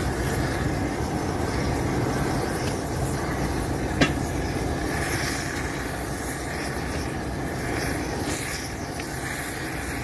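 Gas preheating torch burning steadily, heating the rail ends inside a thermite weld mould to welding temperature before the weld is shot, with wind on the microphone. A single sharp click about four seconds in.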